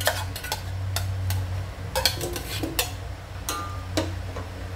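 A metal saucepan and spoon clinking and tapping against an aluminium cooking pot as ingredients are tipped in and stirred: a string of sharp, irregular clinks over a low steady hum.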